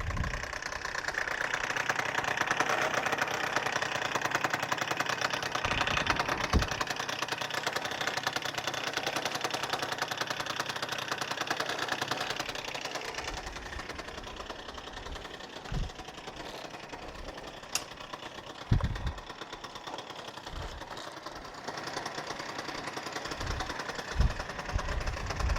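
Suzuki Address 110 two-stroke scooter engine running with a strange rattling knock. The mechanic traces the knock to the magneto (flywheel generator) side. The engine is louder for the first dozen seconds, then settles quieter, with a few short low thumps.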